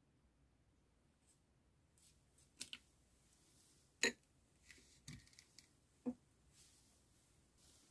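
Clear, jelly-like slime giving a few short, sharp pops and clicks as it is released from a plastic container and settles on a table. The pops come after about two seconds of quiet, the loudest about four seconds in.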